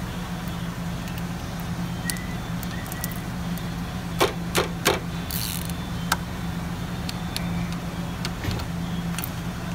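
A ratchet and wrench working the oil cooler bolts: three quick sharp metallic clicks a little past four seconds in and one more about six seconds in, over a steady low hum.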